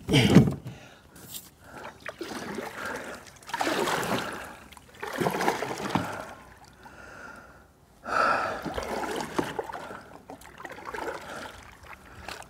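Kayak paddle blades dipping and splashing in the river water, with drips between strokes: a stroke every second or two, the loudest one right at the start.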